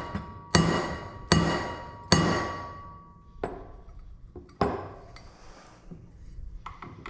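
Hammer tapping a roller pin into a Can-Am Maverick X3 clutch: three ringing metal strikes about two-thirds of a second apart in the first two seconds, then two lighter taps. The pin is being driven in until the retaining screw can go in straight.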